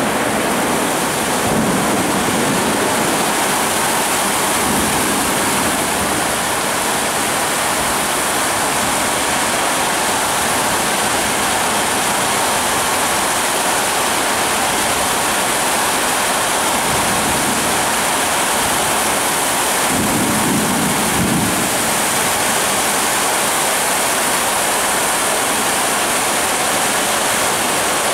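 Heavy tropical downpour in a thunderstorm, rain falling steadily and hard. Low rumbles of thunder sound near the start and again about twenty seconds in.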